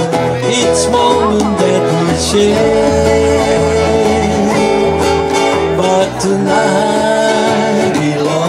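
Live acoustic Hawaiian music: strummed acoustic guitars over regular low bass notes, with a voice singing a held melody.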